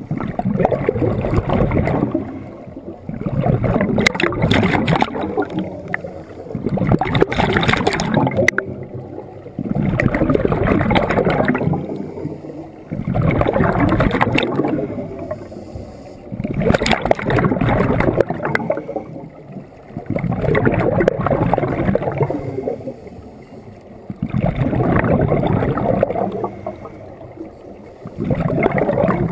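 Scuba diver breathing through a regulator underwater: about nine bubbly, rumbling exhalations roughly three seconds apart, with a faint high hiss on each inhale between them.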